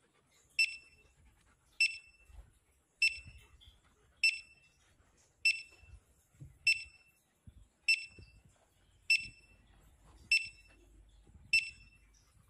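Metal detector sounding short, high beeps evenly spaced about every 1.2 seconds as it is swept over the ground.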